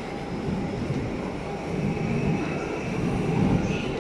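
Steady low rumble of a train on the platform tracks below, over general railway-station noise.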